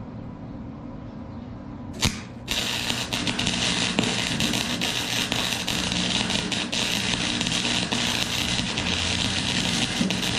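Forney FC125 flux-core welder: after a low hum, the arc strikes with a sharp crack about two seconds in, then runs as a steady, dense crackle and sputter while a bead is laid. The heavy spatter comes from a long arc with a lot of wire stuck out, as the welder himself puts it.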